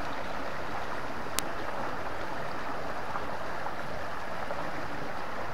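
Shallow rocky stream rushing steadily over stones, with a single sharp click about a second and a half in.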